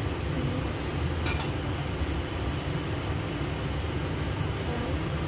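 Kitchen range hood exhaust fan running with a steady whooshing hum, with one light clink about a second in.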